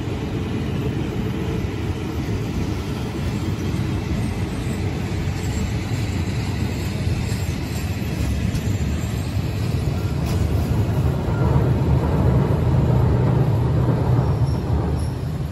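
Passenger train coaches rolling along the rails in a steady low rumble, which grows louder about eleven seconds in before easing near the end.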